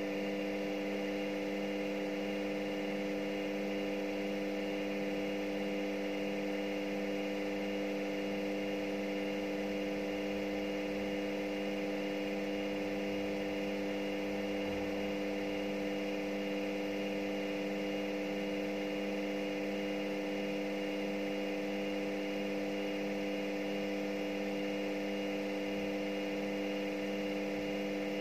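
Front-loading washing machine spinning its empty drum at a steady high speed: an even motor and drum hum with several steady tones, no rise or fall.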